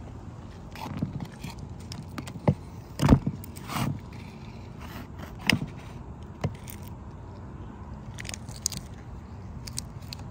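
Scattered clicks and short scrapes from handling while sealant is worked onto the RV roof, the loudest about three seconds in, over a steady low hum.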